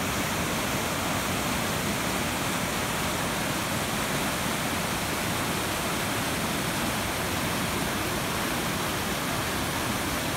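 Creek rapids: whitewater rushing over boulders in a loud, steady, unbroken rush.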